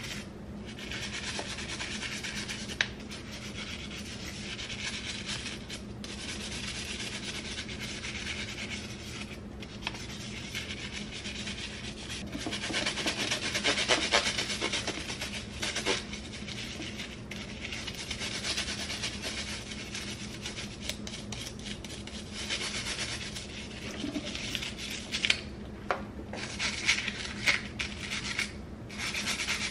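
A stiff scrub brush scrubbing plastic combs and hair brushes in soapy water: continuous scratchy rubbing with brief pauses, loudest about halfway through. A few sharp plastic clicks come near the end, over a steady low hum.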